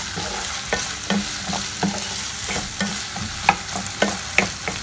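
Diced raw potatoes sizzling as they fry in ghee in a nonstick kadhai, stirred with a wooden spatula that knocks and scrapes against the pan a few times a second.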